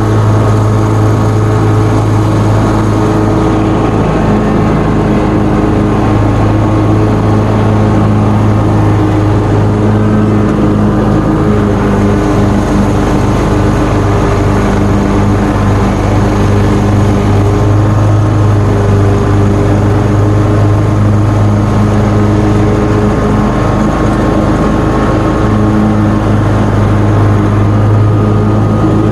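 John Deere mower engine running steadily at mowing speed while cutting thick, wet grass.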